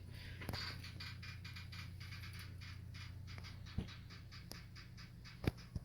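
Faint steady low hum with light scratching and ticking, and two soft clicks, one nearly four seconds in and one near the end.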